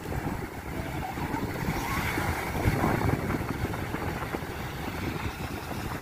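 Wind buffeting the microphone, a steady low rumble, over small waves washing onto a sandy beach.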